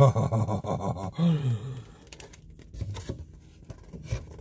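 A man's voice making drawn-out appreciative 'mmm' moans that rise and fall in pitch over a mouthful of burrito. From about two seconds in, quieter chewing follows, with small wet mouth clicks.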